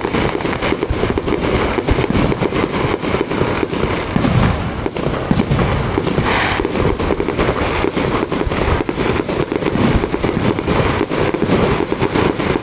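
Aerial fireworks bursting in a rapid, unbroken barrage of bangs and crackles, several a second.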